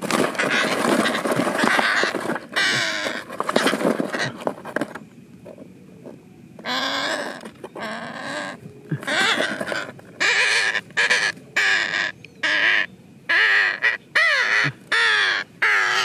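Captured green parakeet screeching in distress as it is grabbed by hand: a dense run of loud, harsh screeches for the first five seconds, a short lull, then a string of short screeches about two a second from around nine seconds on.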